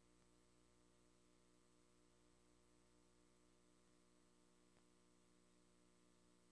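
Near silence: a faint steady hiss and hum, with one faint tick near the end.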